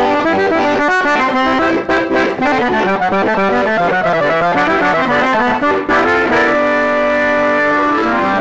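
Button accordion playing a quick run of notes in conjunto style, then holding a sustained chord about six seconds in.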